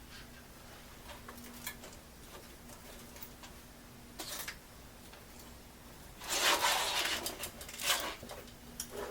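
Scattered handling noises: light clicks and rustling, with a louder rustle about six seconds in and another near the end, over a faint steady hum.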